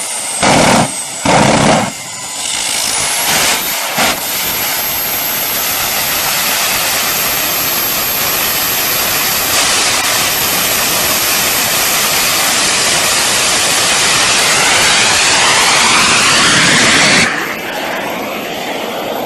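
Small jet turbine engine running with a steady rushing noise and a thin high whine, after a few short loud bursts at the start. Its pitch climbs in rising sweeps near the end, then the sound cuts off suddenly.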